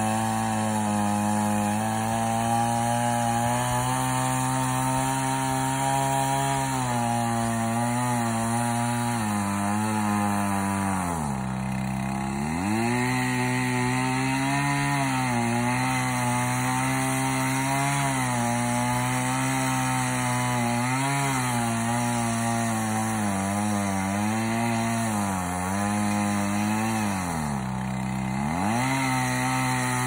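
Chainsaw running at high speed while cutting through a felled tree trunk, its pitch wavering with the load. Twice, about eleven seconds in and again near the end, the engine drops to low revs and then revs back up.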